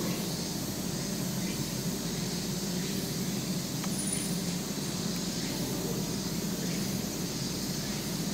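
Steady background hum and hiss, with one faint click about three seconds in.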